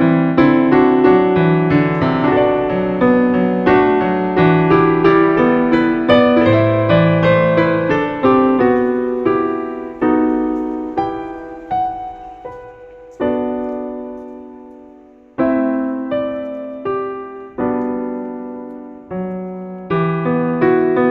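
Background piano music: notes struck and dying away, slowing to long held chords midway, then picking up again near the end.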